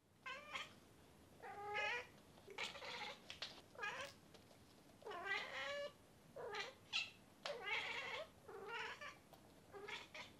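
Bengal cat meowing over and over, about nine short calls each roughly a second apart, some sliding up in pitch at the start.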